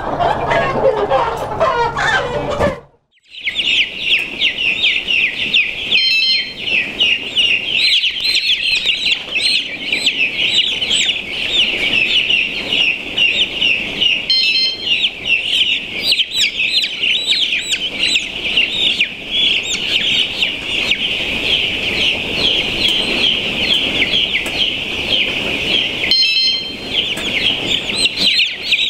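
Adult breeder hens clucking for about the first three seconds. Then, after a brief gap, a large flock of week-old chicks peeping continuously, a dense chorus of rapid high-pitched cheeps.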